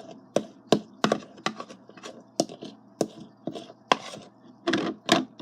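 A utensil knocking and scraping against a bowl as slime is stirred, in quick irregular strikes about three a second.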